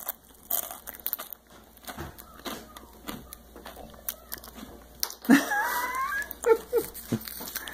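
Crunching and chewing of crackers close to the microphone: many short crisp crunches. About five seconds in comes a brief, high, whistling sound that glides in pitch.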